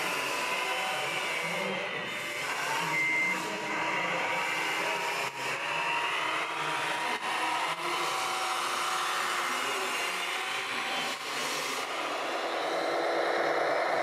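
Radio-controlled model trucks and excavators whirring steadily, their small electric motors whining, with a short beep about three seconds in.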